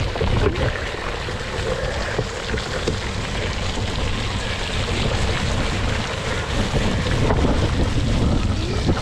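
Wind buffeting an action camera's microphone on a cyclocross bike racing a rough course, a steady rushing rumble with scattered knocks and rattles from the bike over the ground.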